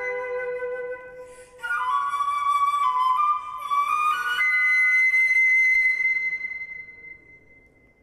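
Solo flute playing birdsong-like figures: a held low note, then a rapid flurry of high notes about one and a half seconds in, ending on one long high note that fades away.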